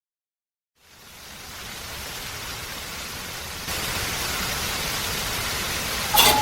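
Silence, then a steady rushing hiss, like rain or wind noise, fades in about a second in and gets louder about halfway through. A sharp click with a brief beep-like tone comes near the end.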